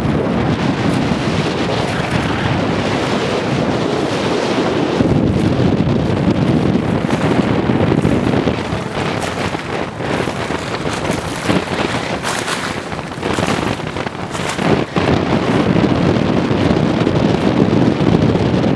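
Strong wind buffeting the microphone, a loud rumbling rush, with scattered short clicks and knocks around the middle.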